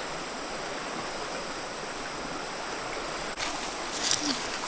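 River water flowing steadily, with a few short sharp sounds near the end.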